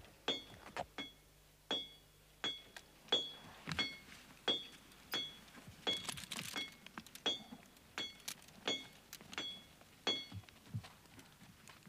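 A horse being led at a walk, with a small bell or metal fitting on its harness clinking at each step: evenly spaced bright metallic clinks about every 0.7 s, all on the same ringing note, over a few dull hoof thuds.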